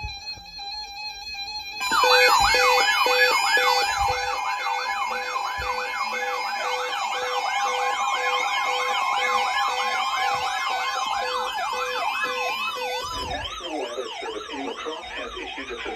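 An electronic siren yelping, rising and falling about three times a second over steady held tones. A little after thirteen seconds it switches to a faster, higher warble.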